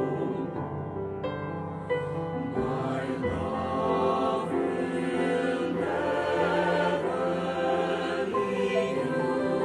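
Mixed choir of men's and women's voices, recorded separately at home as a virtual choir and mixed together, singing a sacred anthem in long, held notes.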